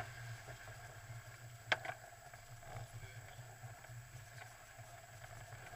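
Off-road 4x4's engine running low and steady, with a few sharp knocks as the vehicle jolts over the rough track; the loudest knock comes a little under two seconds in.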